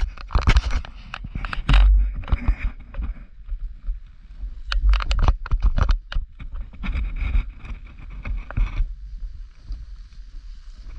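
Snowboard riding over snow, full of sharp click-clack rattling and a heavy low rumble; after about nine seconds the clatter stops and a steady hiss of the board sliding remains.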